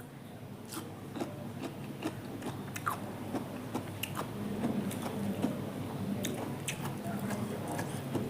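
A person chewing food, with soft, irregular crunching and small clicks.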